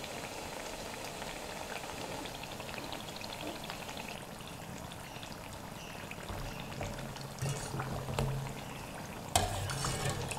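Pepper vadas deep-frying in hot oil, a steady sizzle and crackle. From about two-thirds of the way in a wire skimmer stirs and turns them in the oil, with a sharp knock near the end.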